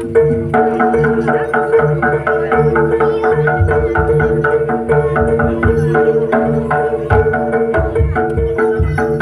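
Live Javanese jaranan gamelan music: fast, steadily repeated metallophone notes over hand-drum (kendang) patterns, with deep drum beats joining about three and a half seconds in.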